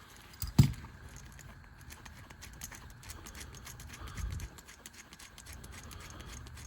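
Metal multi-wrench multi-tool being handled and its adjustable jaw worked: a sharp clack about half a second in, light ticking and clicking, and a duller knock around four seconds in.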